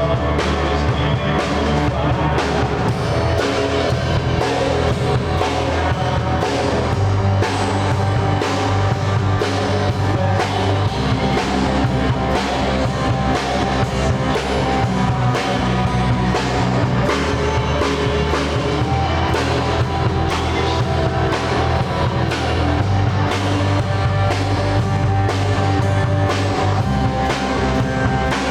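A live rock band playing a song at rehearsal: a drum kit keeps a steady beat under bass and electric guitar.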